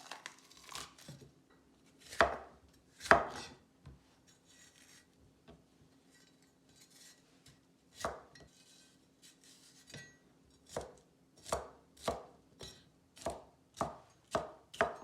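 Kitchen knife cutting a green bell pepper on a cutting board. A few separate cuts come first, the loudest about two and three seconds in. Near the end comes a run of steady slicing strokes, about two a second.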